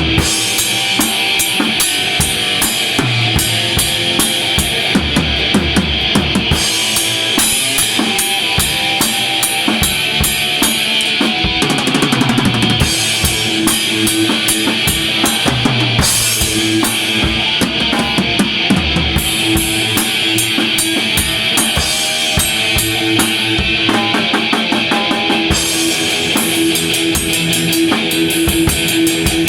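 Heavy metal band playing: a drum kit with bass drum, snare and rapidly struck cymbals over electric guitar.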